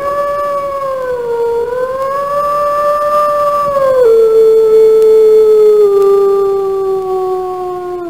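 A grey wolf howling: one long howl that glides up at the start and holds with a small dip and rise. About halfway it drops to a lower, steady pitch, then sinks a little further before ending.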